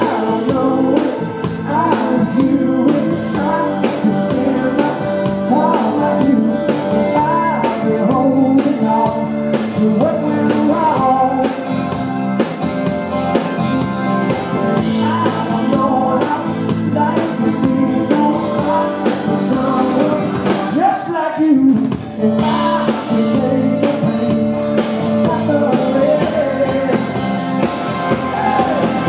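Live blues-rock band playing a song: drum kit, bass and electric guitar under a lead line that bends in pitch. The music briefly breaks off about three quarters of the way through, then comes back in.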